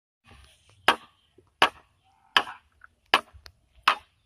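A machete chopping into a standing bamboo stalk: five sharp, evenly spaced strikes, about three-quarters of a second apart.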